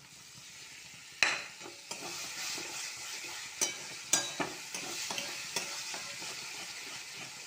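Tomato purée and onion masala sizzling in hot oil in a kadai, stirred with a metal spatula that scrapes and clicks against the pan. A loud sudden hit about a second in sets off the sizzle, which then keeps up a steady hiss.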